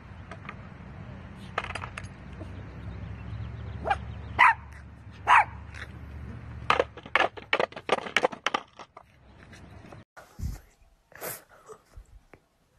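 A dog barking in short, sharp barks, single ones at first and then a quick run of them about two-thirds of the way in, over a low steady rumble. The rumble stops about ten seconds in, and a few brief, scattered sounds follow.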